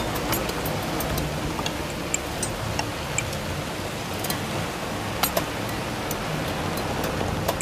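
Electroacoustic sound-design passage from a text-music composition: a steady hiss over a low rumble, sprinkled with short, irregularly spaced clicks and ticks.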